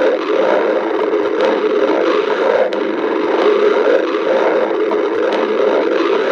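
A person's stomach growling: a loud, continuous gurgling rumble with a fast, even pulsing.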